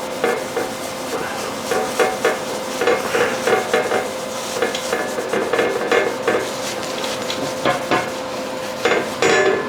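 Metal plate being scrubbed with lacquer thinner to remove printed manufacturer's markings: irregular rubbing and scraping strokes, over a steady hum.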